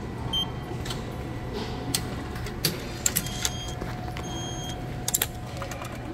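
Japanese station ticket machine processing an IC card top-up: a series of short electronic beeps and sharp mechanical clicks from its card and receipt mechanisms, over a steady background hum.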